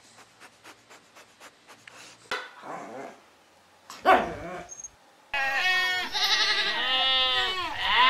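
A herd of goats bleating loudly, several wavering calls overlapping from about five seconds in. Before that comes a single short, sharp dog bark about four seconds in, after faint clicks.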